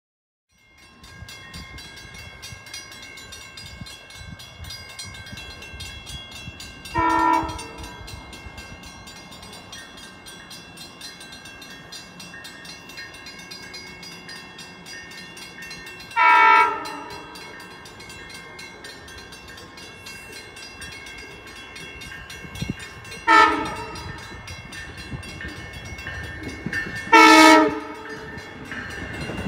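Long Island Rail Road push-pull train approaching with its C3 cab car leading, sounding its horn in four blasts (long, long, short, long), the standard grade crossing signal, the last blast the loudest. Underneath, a grade crossing bell rings steadily, and the train's rumble grows near the end.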